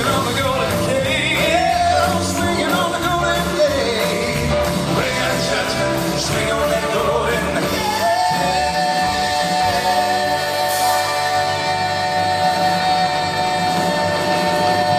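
Gospel vocal quartet singing live with band accompaniment, the voices moving through a phrase and then, about halfway through, settling into one long held closing chord.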